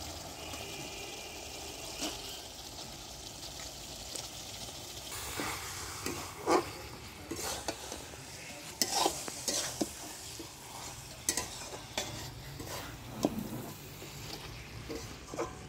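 Chicken pieces and fried spice paste sizzling in oil in a metal pot while a steel spatula stirs them. The spatula scrapes and knocks against the pot, and from about five seconds in the knocks come thick and fast over a steady sizzle.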